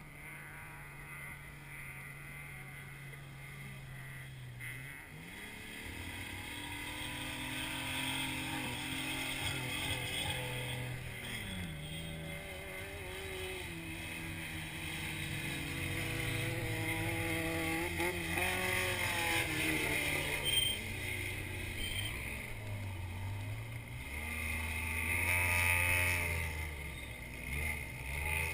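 Off-road desert race vehicle engine running, steady at first, then revving up about five seconds in, its pitch rising and falling again and again as the volume grows.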